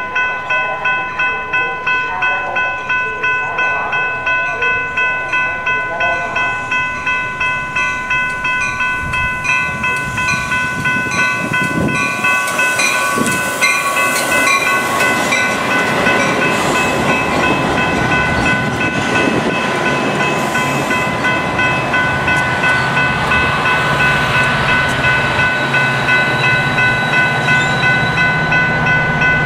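Grade-crossing bell ringing steadily, about two strokes a second, as an inbound Metra push-pull commuter train with a bilevel cab car leading rolls into the station. About twelve seconds in, the rumble of wheels on rail swells as the cars pass close by. Near the end a low hum from the F40PH-3 diesel locomotive pushing at the rear grows under the bell.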